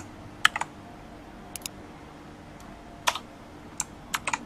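Computer keyboard typing: about a dozen sharp, irregular keystrokes, mostly in quick twos and threes, over a faint steady hum.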